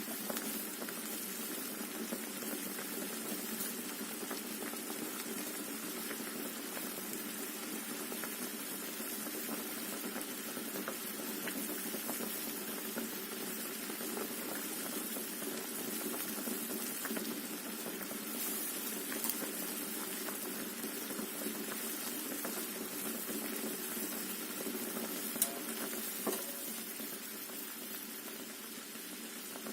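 A pot of water with potatoes and eggs in it at a steady rolling boil, bubbling evenly with many small pops, and two sharper clicks near the end.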